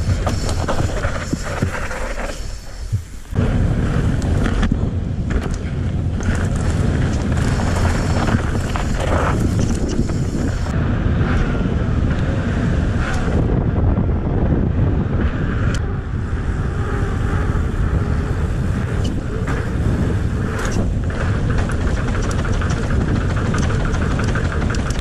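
Wind rushing over an action camera's microphone as a mountain bike rolls fast, its knobby tyres running on pavement, with scattered clicks and rattles from the bike. The sound drops briefly about three seconds in, then continues steadily.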